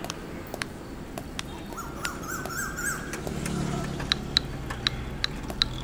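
Street ambience: a low rumble of traffic under a short run of chirping bird calls about two seconds in. From about four seconds on come sharp, repeated chip notes, roughly three a second.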